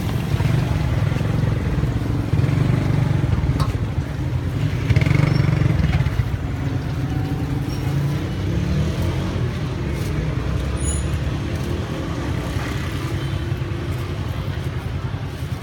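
Street traffic running close by, motor vehicles and motorbikes making a steady low rumble, with a few faint clicks over it.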